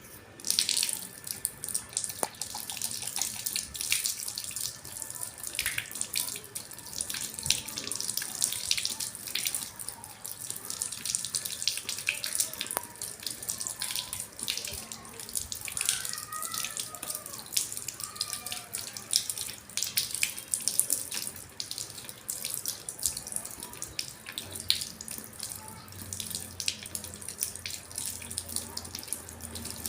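Tap water running into a sink while hands are washed, with irregular splashing throughout; the water comes on about half a second in.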